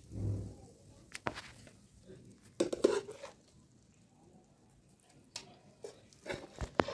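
A steel spoon scraping and knocking against a frying pan as cooked chicken pieces are lifted out and set down on a steel tray: a dull bump at the start, then a few separate clinks and scrapes, the loudest about three seconds in.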